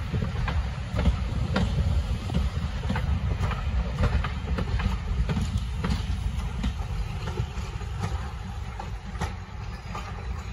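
Heritage railway passenger carriages rolling past: a steady low rumble of wheels on track with repeated clicks and knocks from the rail joints, growing fainter over the last few seconds as the train moves away.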